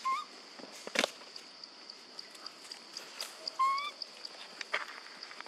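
Two short, slightly rising coo calls from a long-tailed macaque, one at the start and a longer one past the middle, over a steady high insect drone, with a sharp click about a second in.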